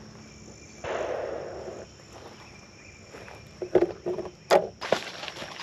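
Footsteps and rustling through dry leaves and brush. There is a second-long rustle about a second in, then a quick run of sharp knocks and crunches near the end.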